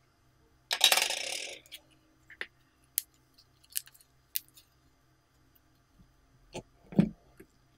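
Slime being handled: a noisy squelch about a second long near the start, a few sharp clicks through the middle, then deeper squishy thumps near the end as slime is pressed down into a glass dish.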